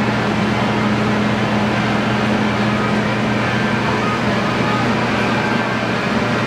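Steady machine noise of a commercial kitchen: a constant fan-like rushing with a low electrical hum underneath.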